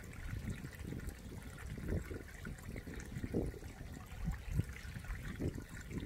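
Mountain stream water trickling down bare rock into a shallow pool, with irregular low gurgles and plops over a steady watery hiss.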